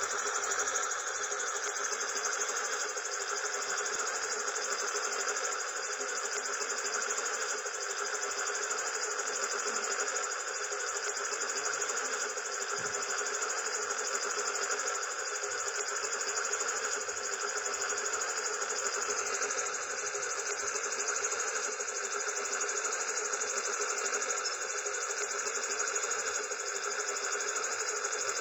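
Spinning propellers whirring with a steady, even buzz that holds unchanged throughout, with no deep beat underneath.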